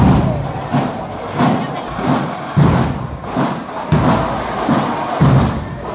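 Marching band drums beating a steady march, a heavy bass-drum thump about every two-thirds of a second, over the noise of a crowd.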